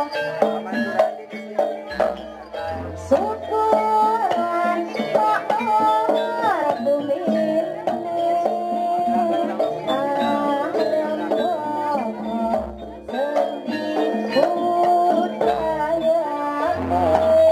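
Live Javanese jaranan ensemble music: a melody line that bends and glides between notes over hand drums and low strokes, played for the trance dance.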